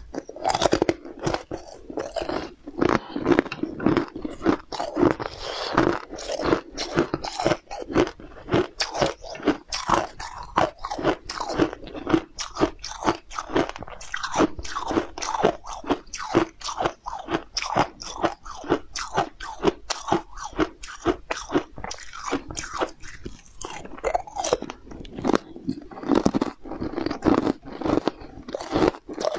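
Close-miked crunching and chewing of translucent orange treats topped with blue sprinkles: a continuous stream of crisp crunches, several a second, as each piece is bitten and chewed.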